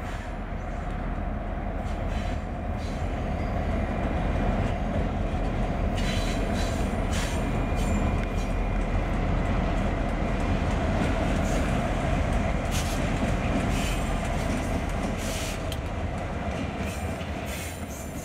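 Canadian Pacific diesel freight locomotives and their freight cars passing close by: a steady engine drone over the rumble of wheels on the rails, with brief high-pitched screeches now and then. It grows louder over the first few seconds and fades near the end.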